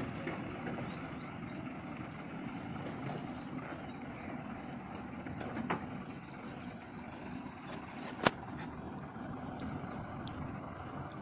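Heavy tipper truck's diesel engine running at low revs as it manoeuvres slowly, a steady rumble, with a sharp click about eight seconds in.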